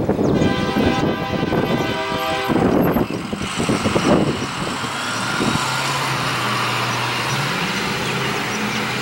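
Diesel locomotive's multi-chime air horn sounding a long blast for the grade crossing, cutting off about two and a half seconds in. A car then drives past close by, and the locomotive's diesel engine is left running low and steady as it creeps along.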